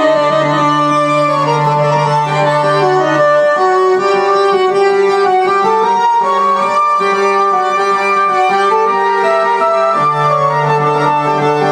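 Korg Delta DL-50 analog string synthesizer played in slow, sustained chords, with a low note held underneath that drops out about three seconds in and comes back near the end. The keyboard is working again after its faulty capacitors were replaced.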